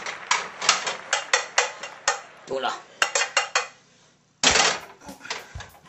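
Pots, pans and utensils clattering on a stovetop: a quick run of metal clinks and knocks, then a short pause and a brief loud rush of noise about four and a half seconds in, followed by a few more knocks.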